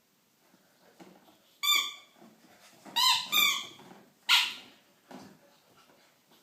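Rubber squeaky dog toy being squeezed, giving three short high squeaks in quick succession, then a brief breathy rush of noise, which is the loudest sound.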